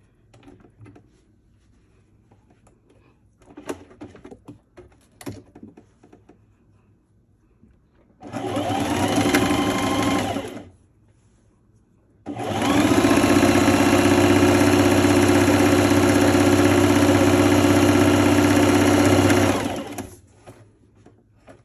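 Electric sewing machine stitching a seam in two runs: a short run of about two seconds about eight seconds in, then a steady run of about seven seconds after a brief pause. Light clicks and fabric handling come before the first run.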